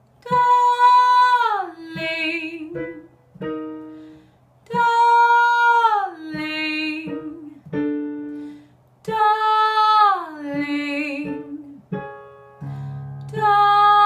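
A woman singing "darling" on a descending fifth, four times, each time a step lower, from about treble C, as a soft-palate-lift vocal exercise. Each phrase holds the top note and then slides down to the lower one. Short accompanying notes, like piano, sound between the phrases.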